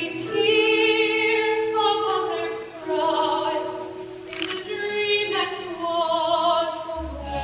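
Musical-theatre singing: a voice holding long notes with vibrato over the show's backing music.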